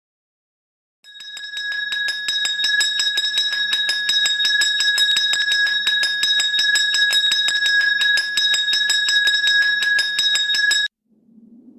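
A bell rung rapidly and continuously, its clapper striking several times a second over a steady high ringing tone. It starts about a second in and cuts off suddenly near the end.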